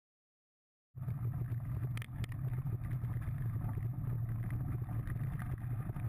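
Wind buffeting the microphone of a camera on a moving mountain bike, a steady low rumble that starts suddenly about a second in, with a few sharp rattles from the bike on the dirt trail about two seconds in.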